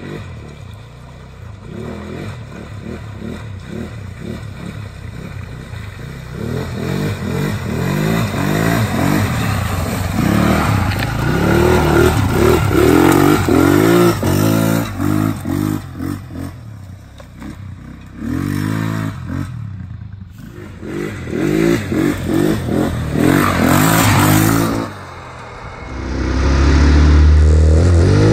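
Small ATV engine revving up and down again and again as the quad churns through a rocky creek bed and spins its tyres in mud, with scraping and clatter from the wheels. About 26 s in it turns into a steady, louder drone from an onboard camera close to the machine as it rides along.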